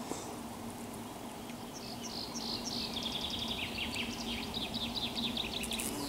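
A bumblebee buzzing with a steady low hum, while a small songbird sings a run of high chirps that starts about two seconds in and turns into a quick trill.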